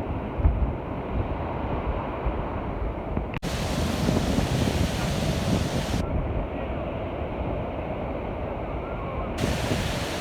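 Storm surf breaking and washing on a beach, a steady rushing of waves, with wind buffeting the microphone.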